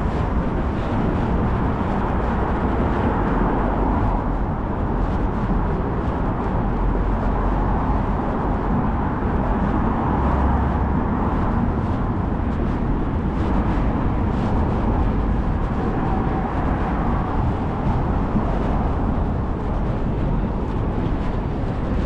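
Steady city street noise, mostly vehicle traffic passing, with a constant low rumble.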